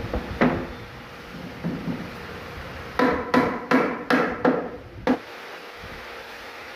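Hard knocks on solid wood as the bed's frame parts are tapped and fitted together. One knock comes about half a second in and a few lighter ones follow, then a quick run of about seven ringing knocks over two seconds, stopping about a second and a half before the end.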